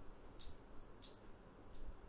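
Quiet room tone with three faint, high, evenly spaced ticks about two-thirds of a second apart.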